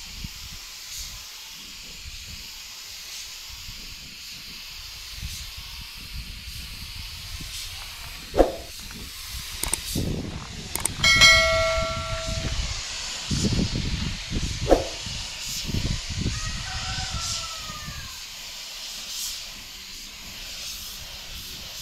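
Compressed-air paint spray gun hissing steadily as paint is sprayed onto a truck cab. Low wind rumble comes and goes in the middle, with a couple of knocks and a short pitched hoot about eleven seconds in.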